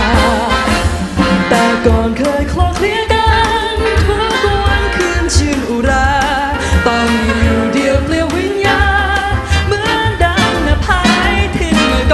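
Jazz band with a horn section, piano, guitar, bass and drums playing a swinging arrangement, held horn lines with vibrato over steady drum hits.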